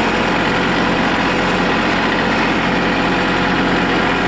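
Tractor engine running steadily, heard close up from the driver's seat.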